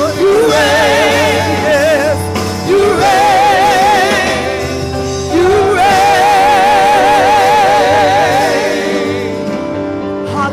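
A woman singing a gospel song into a microphone over electronic keyboard accompaniment. She holds two long notes with a wide vibrato, one about three seconds in and a longer one about six seconds in.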